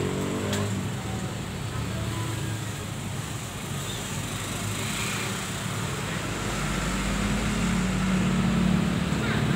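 Road traffic with a vehicle engine running, its hum growing louder over the last few seconds.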